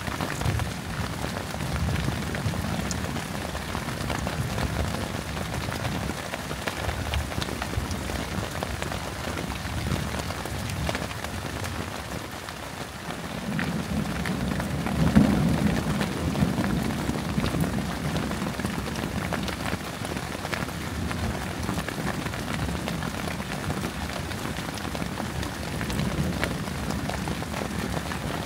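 Steady rain falling, with scattered drop ticks. A low roll of thunder swells about halfway through and fades over a few seconds.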